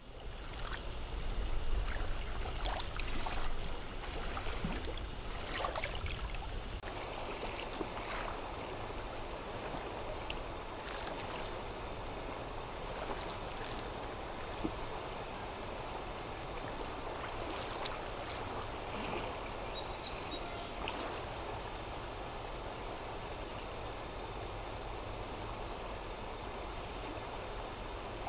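Flowing water of a river running high in flood, a steady rushing noise. A thin steady high whine sits over it for the first several seconds.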